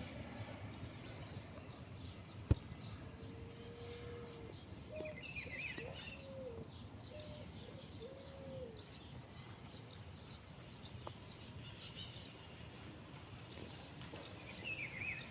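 Birds chirping and twittering, with many short high chirps throughout and a run of four or five low, arched call notes a few seconds in.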